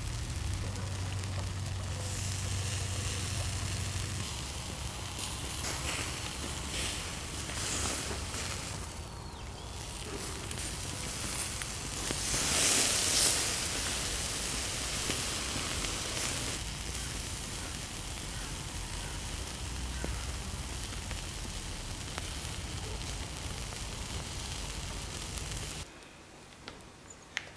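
Marinated pork intestine (makchang) sizzling on a wire grill over a charcoal fire: a steady sizzle with scattered crackles, swelling louder for a second or two about halfway. Near the end it cuts to a much quieter background with a few light clicks.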